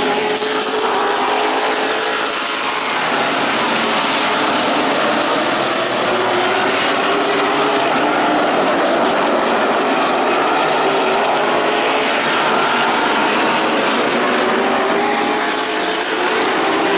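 Several stock car engines racing around an oval track. Their pitch rises and falls as the cars accelerate through the turns and pass by.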